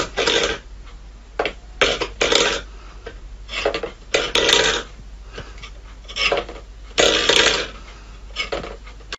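Stainless steel bowl pushed and tipped by a cat's paw, scraping and clanking on a wooden floor in a string of short bursts, about one a second.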